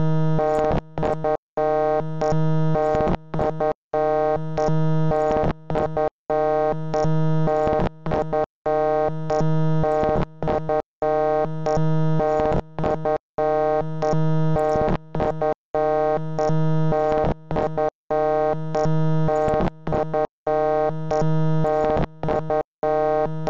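A loud, harsh electronic synthesizer tone, a dense buzzy chord held at one pitch and cut by brief, abrupt gaps every second or two.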